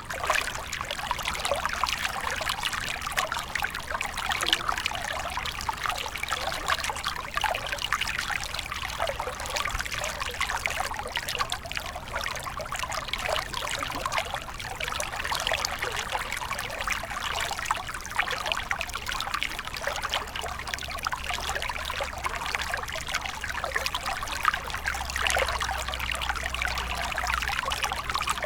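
River water running and trickling over rocks, a steady splashing babble.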